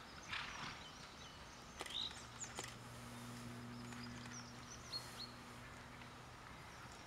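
Quiet outdoor ambience with a few short chirps from small birds and a brief hiss near the start. A low steady hum comes in about two seconds in and fades out about two seconds before the end.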